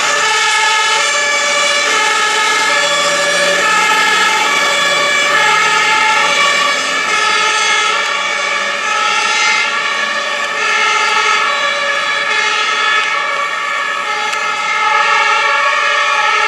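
Several fire engines' two-tone compressed-air horns sounding together. Each switches back and forth between its two pitches, and the horns overlap out of step with one another.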